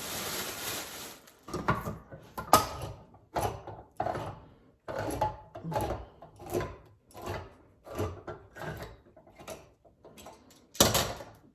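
A brief rustle of plastic wrap, then a knife knocking on a cutting board in a steady string of chops, with one louder knock near the end.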